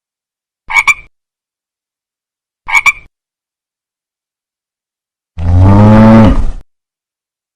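A frog croaks twice, each croak a short double ribbit, about two seconds apart. Some seconds later comes a louder, long low-pitched animal call that sinks in pitch at the end.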